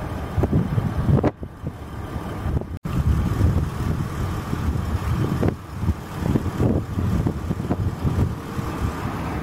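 Jet airliner engines rumbling on approach and landing, mixed with gusty wind buffeting the microphone, over a faint steady whine. The sound breaks off briefly about three seconds in.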